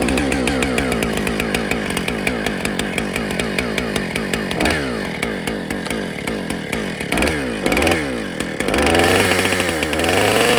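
Husqvarna 455 Rancher two-stroke chainsaw running, its engine speed sinking gradually at first and then rising and falling several times, with a louder high-revving stretch near the end.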